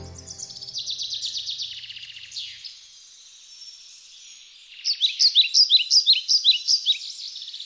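Forest songbirds singing. A rapid trill comes in the first couple of seconds, then from about five seconds in a louder run of quick down-slurred notes, several a second.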